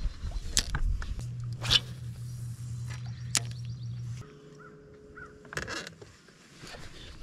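Crows cawing a few times outdoors over a steady low hum that stops about four seconds in and gives way to a briefer, higher hum.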